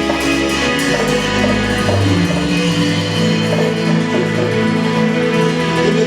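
Live worship band playing an instrumental passage, guitar prominent over held keyboard chords and bass.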